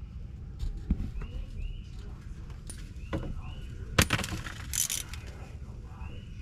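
Scattered metallic clicks and knocks from bumper parts and hardware being handled, loudest in a clatter about four seconds in. Short chirps repeat in the background, like a bird calling.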